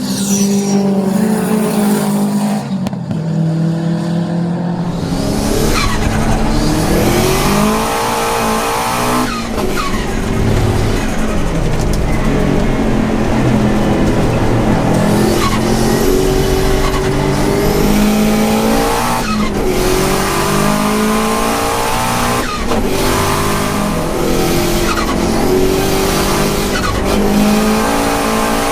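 Turbocharged EJ25 flat-four of a 2002 Subaru WRX STi race car driven hard on a circuit. The revs climb and fall again and again through gear changes; they are lower and steadier for the first few seconds, then the engine pulls hard.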